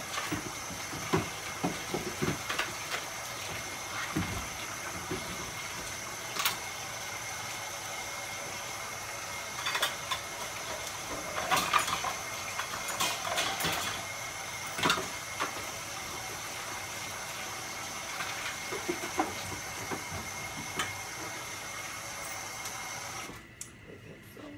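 Kitchen faucet running steadily into a stainless steel sink, with scattered clinks and knocks from things handled in the basin; the water is shut off near the end.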